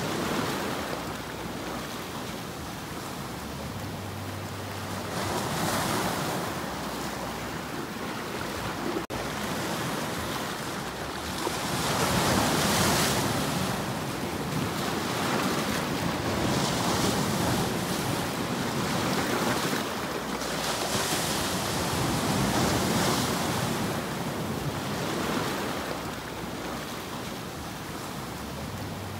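Sea waves breaking and washing over shoreline rocks, the surf swelling and easing every few seconds.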